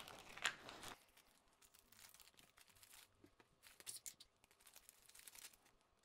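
Thin clear plastic bag crinkling and rustling as it is handled, loudest in the first second, then faint scattered crackles.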